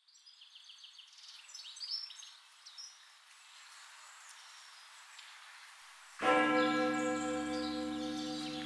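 Faint birds chirping over quiet outdoor ambience, then about six seconds in a church bell strikes once and rings on, its hum slowly dying away.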